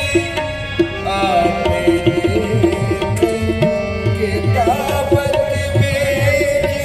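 Tabla playing a steady, driving dhamal rhythm under sustained harmonium notes in Punjabi Sufi music, with a man's voice singing short melodic phrases.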